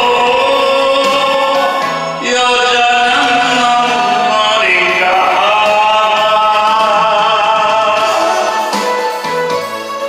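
A man singing a Korean trot song into a microphone over a karaoke backing track, holding long notes; about nine seconds in his voice stops and the keyboard backing music carries on.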